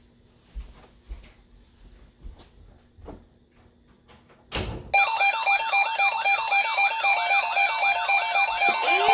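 Several weather alert radios going off at once as a severe thunderstorm watch comes in: light knocks at first, then a loud burst about four and a half seconds in. After that, overlapping alarms of steady tones, repeating beeps and fast warbling sweeps. Near the end a siren-like tone starts rising in pitch.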